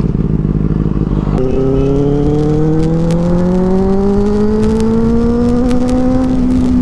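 Motorcycle engine heard while riding. It shifts about a second in, then pulls steadily with the pitch rising for several seconds before levelling off near the end.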